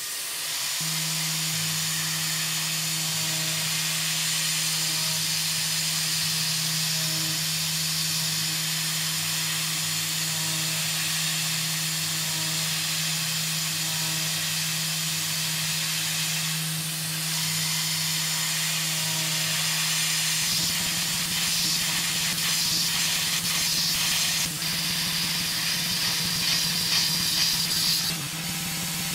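Tormach 440 CNC mill cutting aluminium: a steady spindle hum under a strong hiss from the coolant nozzle aimed at the end mill. About 20 seconds in the hum gives way to a rougher, crackling cutting noise.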